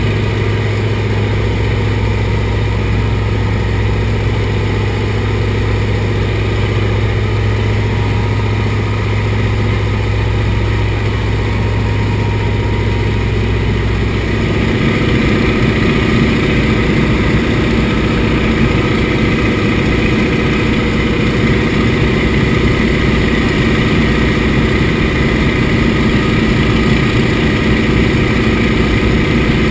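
Antonov An-2's nine-cylinder ASh-62 radial engine running steadily, heard from inside the cockpit. About halfway through, the engine sound changes character and gets slightly louder.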